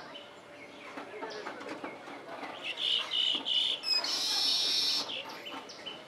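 Baya weavers chattering with many short chirps; about halfway through come three loud chirps in a row, followed by a harsh, wheezy buzz about a second long.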